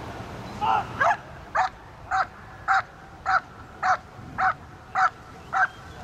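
Dog barking steadily at the helper after letting go of the bite sleeve, the guarding phase of IPO protection work. The barks start about a second in and come evenly, a little under two a second.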